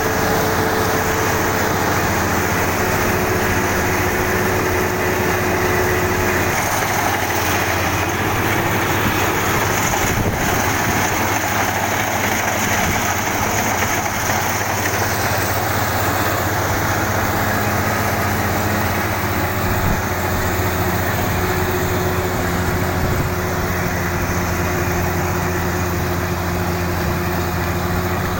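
Kubota DC-35 combine harvester running steadily, its engine and threshing machinery making a loud, even drone.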